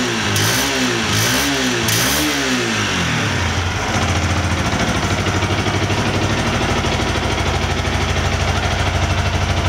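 Yamaha YZF R125's single-cylinder four-stroke engine blipped about three times, each rev rising and falling quickly, then settling about three seconds in to a steady, evenly pulsing idle.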